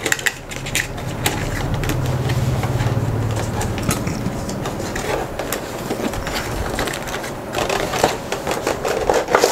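Cardboard headset box being opened by hand: the flap and inner tray scrape, rustle and click. A low hum swells and fades over the first few seconds.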